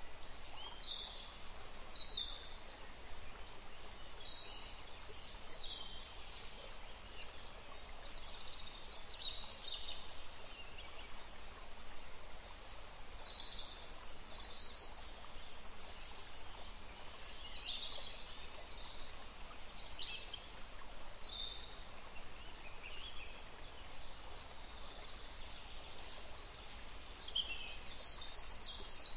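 Fish fillets frying in butter in a nonstick pan: a steady faint sizzle with irregular spitting pops.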